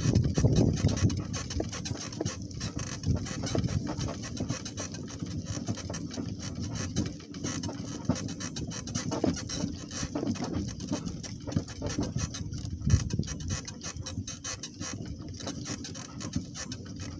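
A donkey's hooves and a person's footsteps moving along, an irregular patter and rustle of steps.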